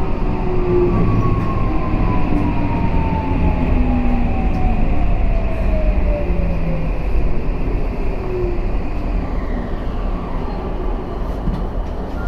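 Toei 5500 series electric train running, with a steady rumble of wheels on track and a motor whine that glides slowly down in pitch over several seconds.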